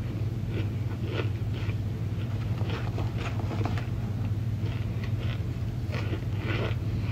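Dry, crumbly chunks of cornstarch crunching and crackling in short, irregular snaps as they are rummaged in a plastic tub and chewed, over a steady low hum.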